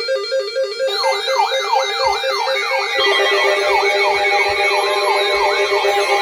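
Several electronic siren tones layered together. A hi-lo two-tone alternation runs throughout. About a second in it is joined by a fast, repeating swept wail, and about three seconds in by further steady tones, making a dense clash of sirens.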